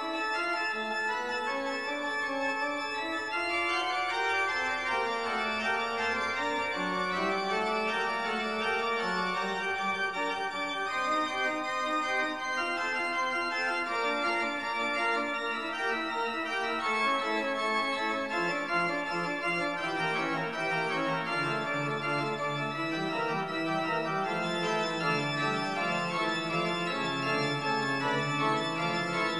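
Background music: sustained chords with melody lines moving slowly in steps, on an organ-like keyboard.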